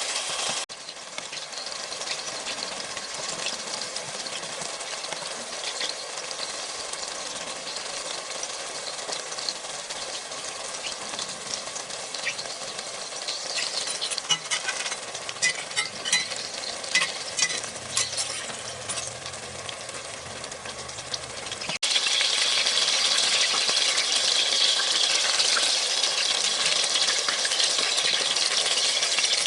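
Chicken patties sizzling as they fry in a pan, a steady hiss with a few light clicks about halfway through. The sizzle changes suddenly near the start and grows louder about three-quarters of the way in.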